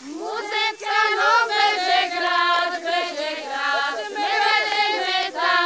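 A group of female voices singing a folk song together; a new phrase starts right at the beginning, with several voices in overlapping parts.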